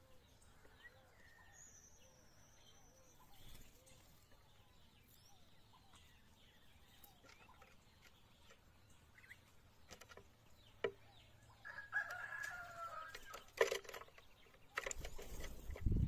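A rooster crowing once, about twelve seconds in, over faint scattered bird chirps. Near the end a short burst of low rumbling noise.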